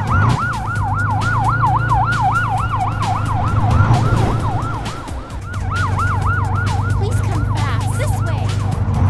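Fire truck siren in a fast yelp, sweeping up and down about three times a second over a low engine rumble; the siren dips briefly about halfway through, then picks up again.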